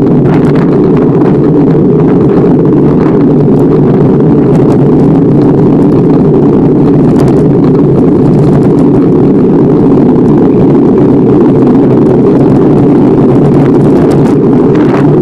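Loud, steady wind rumble on the microphone of a camera riding on a moving bicycle, with a few faint ticks and rattles.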